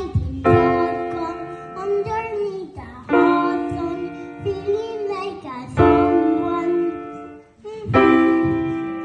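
Grand piano playing: four full chords struck a few seconds apart, each left ringing and fading before the next.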